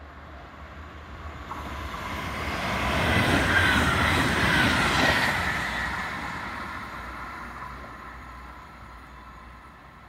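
A train passing through, growing louder to a peak about four seconds in and then fading away.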